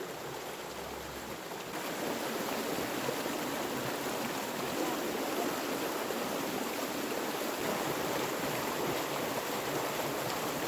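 Water rushing steadily out of a freshly unclogged road culvert into the stream below, a strong flow from the pond draining back through the pipe.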